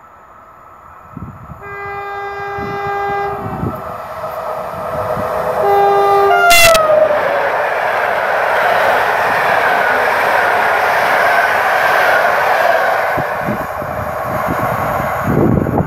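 Express passenger train on an electrified main line sounding its two-tone horn twice as it approaches, the second blast dropping in pitch as the locomotive passes close by. A sharp crack follows, then the steady rush and rail noise of the coaches going by at speed, slowly easing as the train draws away.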